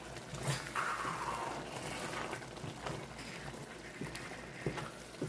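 Chopped tomatoes sizzling and bubbling as they fry in a pan, with a wooden spatula stirring and knocking against the pan a few times.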